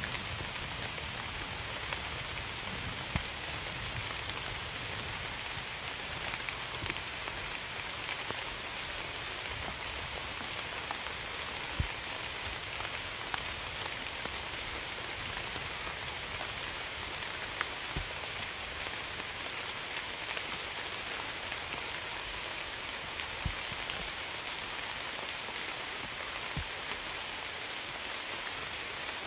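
Steady rain falling on a surface, an even hiss with occasional louder single drops ticking through it.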